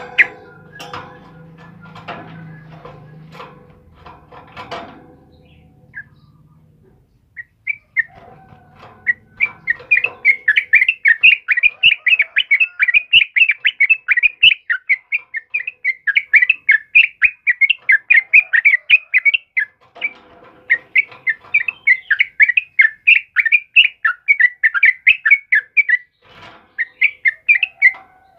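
Yellow-vented bulbul (trucukan) in a cage singing a loud, fast run of short chattering notes, several a second, from about seven seconds in, with a couple of brief breaks. Before the song there are only a few soft clicks and knocks.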